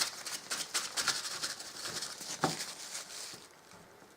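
Toilet paper being handled and crumpled, a quick run of small crackles and rustles with one soft knock partway through, fading out about three and a half seconds in.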